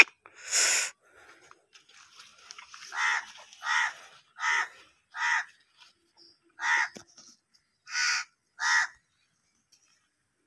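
A crow cawing: seven harsh caws in a loose series from about three seconds in until near the end, the first four about three-quarters of a second apart. A short noisy burst comes just before, near the start.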